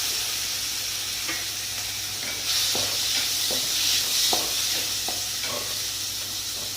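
Onion and tomato frying in hot oil in a pan, sizzling steadily as they are stirred, with a spoon clicking against the pan now and then.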